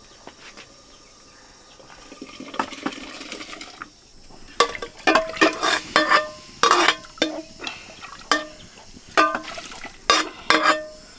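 A metal utensil clinking repeatedly against a metal cooking pot, each strike ringing briefly at the same pitch, in an irregular run through the second half. Before it, a soft rushing hiss.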